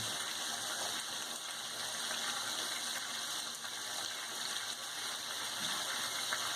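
Diced chicken breast frying in oil in a pan with chopped garlic and herbs, a steady sizzle.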